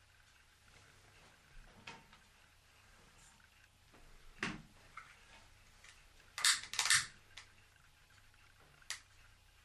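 A long-nosed utility lighter clicked to light, two sharp snaps close together past the middle, with a fainter knock before and a small click near the end.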